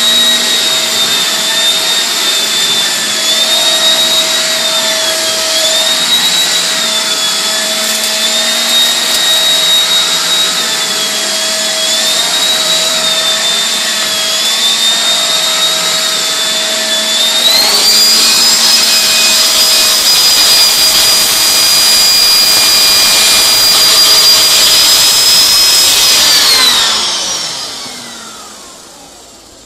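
Miele S5210 canister vacuum cleaner running with its floor head moved over carpet, the motor's whine wavering slightly in pitch. About two-thirds of the way in the whine jumps higher and louder, and near the end it is switched off and winds down.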